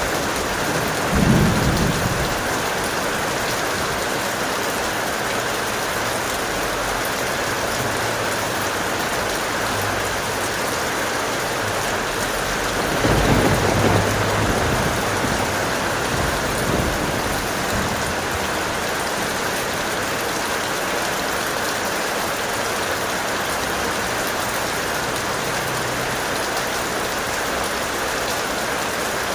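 Steady strong rain falling, with two low rolls of thunder: a short one about a second in and a longer rumble about halfway through.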